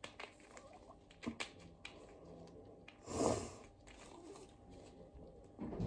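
Soft clicks and taps from hands fiddling with a packet, trying to get it open, with one louder short sound about three seconds in.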